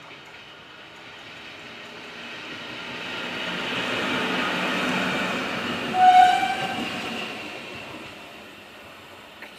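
Indian Railways WAP4 electric locomotive hauling a dead WAG9 runs light past: the rumble of wheels on rail and motor noise builds to its loudest about four to five seconds in, then fades as the pair moves away. A short horn blast sounds about six seconds in.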